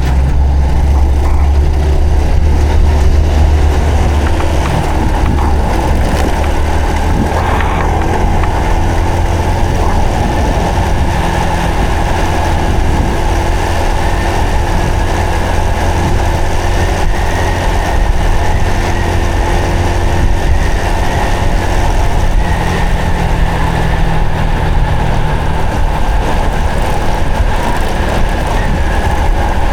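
Honda Supra X 125 FI's single-cylinder four-stroke engine running steadily while the motorcycle is ridden.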